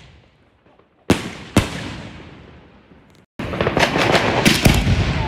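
Fireworks: two sharp bangs about half a second apart, each ringing out and fading. Then, about three and a half seconds in, a dense run of pops, crackles and bangs from many fireworks starts abruptly.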